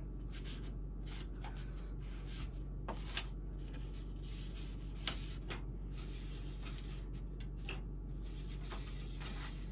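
A cloth wiping around the fans on a PC case's front panel: faint, light rubbing with a few small clicks, over a steady low hum.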